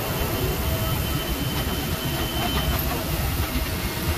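Steady machinery din of an industrial plant hall: a low rumble with hiss and a few faint knocks, and a thin high whine that stops about two-thirds of the way through.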